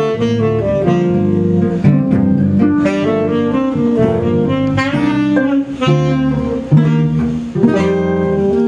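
Small band improvising an instrumental piece: acoustic guitar picked and strummed over bass, with saxophone playing a held melodic line.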